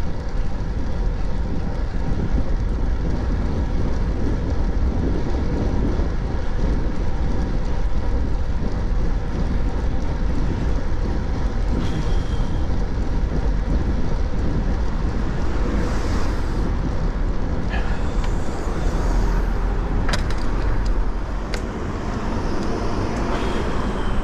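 Steady road traffic noise heard from a moving bicycle: cars running along a busy street under a low, even rumble, with a sharp click about twenty seconds in.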